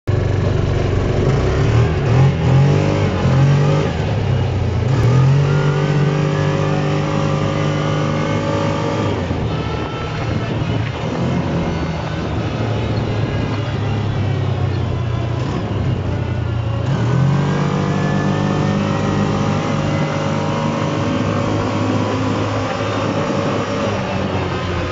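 Yamaha side-by-side UTV engine running under way, heard from the cab. It speeds up with a rising pitch a couple of seconds in, again about five seconds in and again around seventeen seconds, holding steady between and easing off around ten seconds in.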